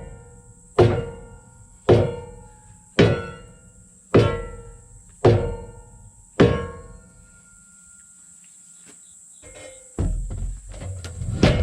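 Music with a slow, even beat of single struck percussion hits, about one a second, each ringing out briefly; the hits stop about seven seconds in, and a rougher, louder sound comes in near the end.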